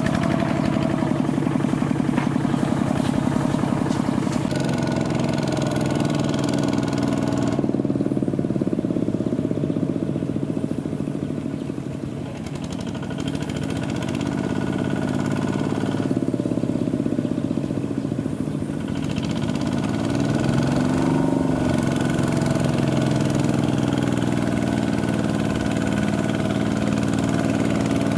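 Kubota mini walking tractor's engine running steadily, pulling a rice trailer. It slows and quietens about twelve seconds in, then picks up speed again.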